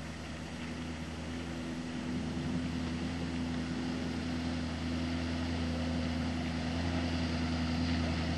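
Truck engine running at a steady low speed, a low hum that slowly grows louder.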